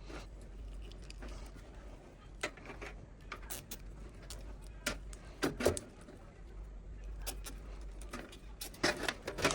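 Scattered light clicks and rustles of computer power cables being handled and coiled inside a desktop PC case, over a steady low hum.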